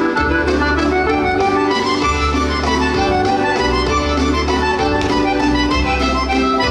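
Folk dance tune led by an accordion, its melody in held chords over bass notes that change about once a second.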